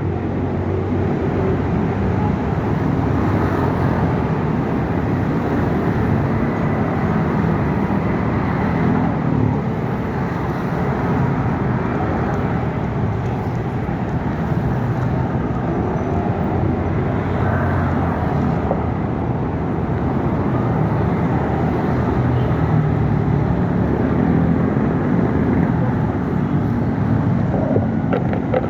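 Steady road traffic noise with a vehicle engine's low hum.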